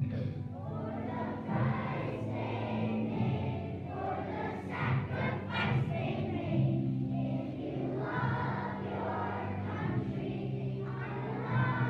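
A large group of children singing a song together in a school gymnasium, with low steady accompaniment tones underneath.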